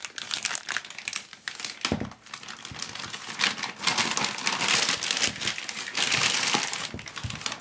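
Plastic anti-static bag rustling and crackling as it is pulled off the soldering station's base unit, busiest in the second half, with a knock about two seconds in.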